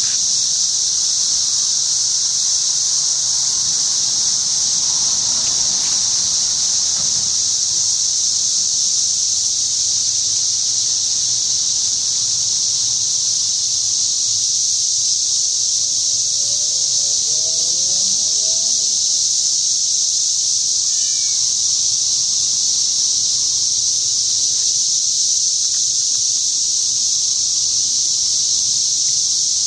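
Chorus of cicadas: a loud, steady, high-pitched buzzing drone that holds unbroken throughout.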